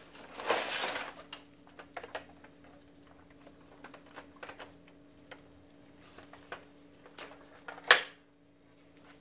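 Plastic paper tray of an HP LaserJet printer sliding out with a rattle about half a second in, then small plastic clicks and taps as the tray's feed rollers are handled. One loud, sharp click about eight seconds in.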